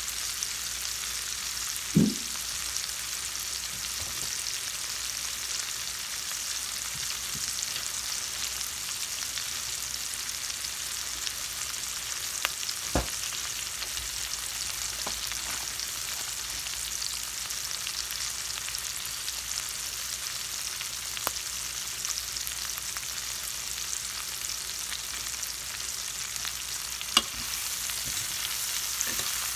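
Chopped bell peppers and onions sizzling steadily in oil in a stainless-steel skillet, with a few isolated clicks.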